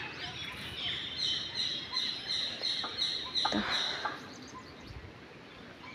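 A small bird chirping: a run of short high chirps, about three a second, from about a second in to about four seconds in.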